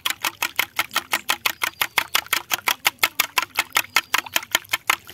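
Wire whisk beating eggs and milk in a glass bowl, the wires clicking against the glass in a quick, steady rhythm of about eight or nine strokes a second.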